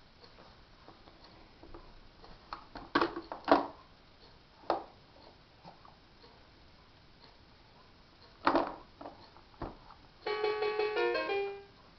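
Scattered knocks and clicks of a baby's hands slapping the plastic buttons of a LeapFrog electronic learning toy. About ten seconds in, the toy's speaker plays a short electronic jingle of quick notes that lasts about a second.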